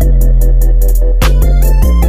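Electronic background music: a deep bass line under a quick, steady ticking beat, with a short rising run of notes near the end.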